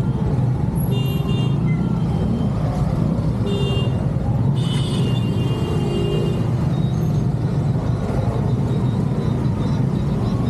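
Dense street traffic heard from a slowly moving scooter: a steady engine and road rumble, with vehicle horns beeping briefly about a second in and again near the middle, followed by a longer honk.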